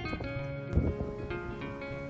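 Background instrumental music of plucked notes, with a brief low thump a little under a second in.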